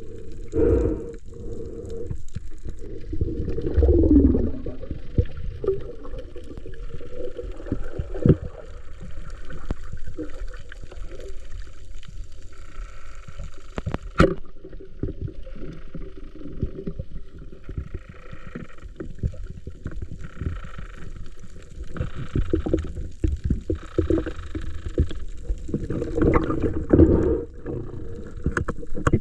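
Water sloshing and gurgling, heard muffled, with irregular knocks and one sharp click about halfway through.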